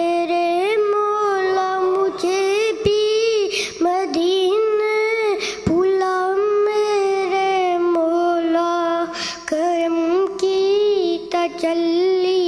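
A boy singing an Urdu naat solo and unaccompanied, in long held notes with wavering ornaments and brief pauses between phrases.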